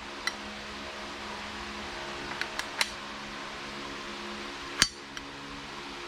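Light plastic-and-metal clicks from handling the airsoft pistol, a few scattered ones and one sharper click about five seconds in, over a steady low hum.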